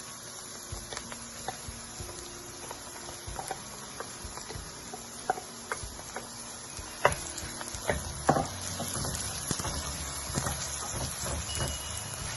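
Light scattered clicks and knocks of a utensil against a cooking pot as chicken pieces are stirred, with a couple of sharper knocks about seven and eight seconds in.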